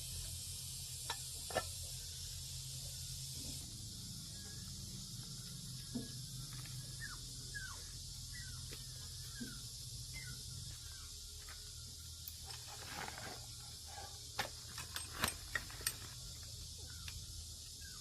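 Scattered light clicks and taps of parts being handled during reassembly, with a quick run of them near the end, over a steady high hiss and faint short chirps.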